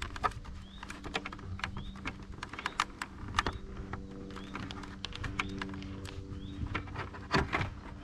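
CSC City Slicker 3.2 kW electric motorbike riding: a steady motor hum in several tones, with irregular clicks and knocks over it and a short rising chirp repeating about once a second.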